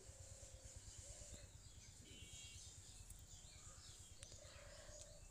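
Near silence, with faint bird chirps in the background.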